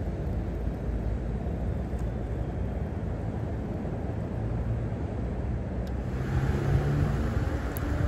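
Steady low rumble of road traffic; about six seconds in it grows louder, with a low hum added.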